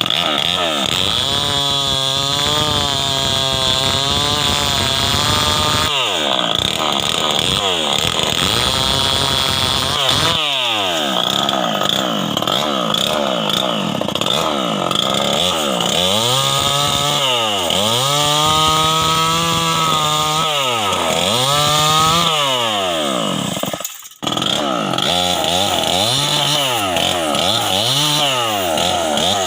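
Stihl 070 two-stroke chainsaw running hard, its engine speed repeatedly sagging and climbing back as it works through teak wood. The sound briefly drops out about four-fifths of the way through.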